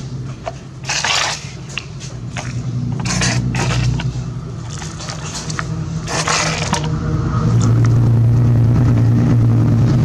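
Gritty scraping and pouring of sand as a plastic toy excavator bucket scoops and drops it into a plastic toy dump truck bed, in several short rushes, over a steady low hum that grows louder near the end.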